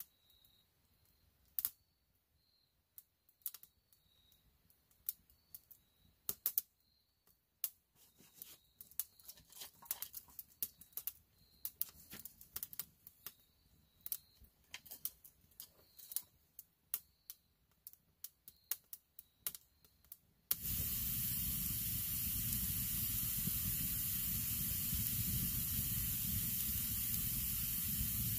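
Small wood fire of birch bark and kindling crackling with sparse, sharp pops and snaps. About twenty seconds in it changes abruptly to a loud, steady hiss of the fire burning close up.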